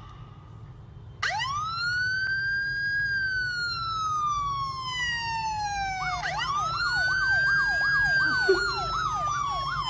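Recorded emergency-vehicle siren played from a smartphone. About a second in, a wail rises and slowly falls. Around six seconds in it rises again and a fast up-and-down yelp joins it.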